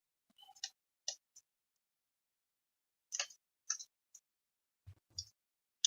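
Cardstock tags being handled and slid into a paper pocket: scattered short ticks and rustles of paper, with two soft low thumps near the end.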